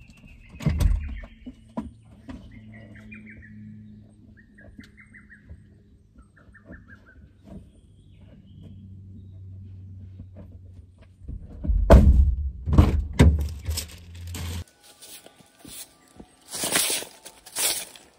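Songbirds give several short trilled chirps over a low steady hum, with thumps of things being handled at a car's side door and a few heavy thuds about twelve seconds in. Then a long-handled brush sweeps stone in scratchy strokes, roughly two a second.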